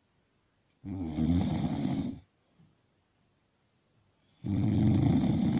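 Snoring: two long, rough snores, each lasting over a second, about three and a half seconds apart, with quiet between.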